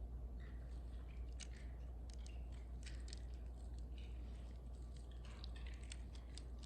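Faint small clicks and short rustles, scattered irregularly, over a steady low hum.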